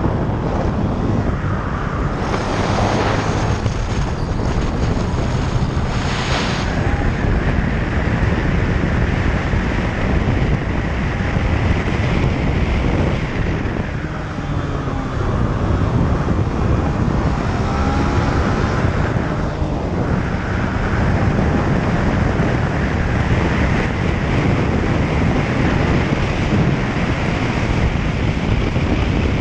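Honda Grom's single-cylinder four-stroke engine running hard at race pace, heard onboard under heavy wind noise on the microphone.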